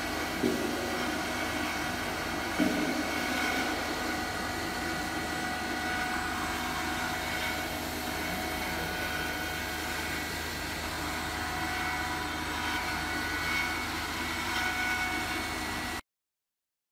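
Vacuum frying machine running: a steady mechanical hum with constant whining tones from its vacuum pump and basket spin drive, and two brief knocks in the first three seconds. The sound cuts off suddenly near the end.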